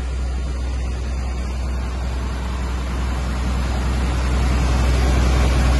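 Fire engine running steadily: a low engine drone under a broad rushing noise that grows a little louder over the last couple of seconds.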